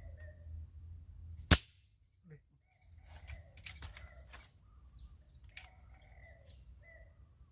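A single sharp gunshot about one and a half seconds in, a shot fired at a bird, followed by a few fainter clicks.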